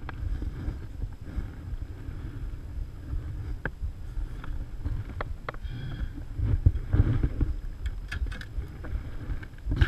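Wind buffeting the microphone as an uneven low rumble, with a few scattered light clicks and knocks of gear being handled in a kayak.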